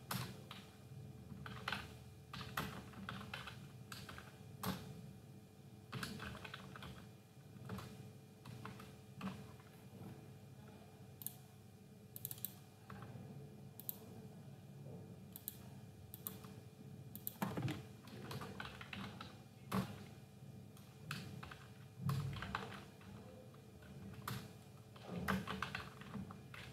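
Computer keyboard being typed on in short, irregular runs of keystrokes with pauses between them, over a faint steady hum.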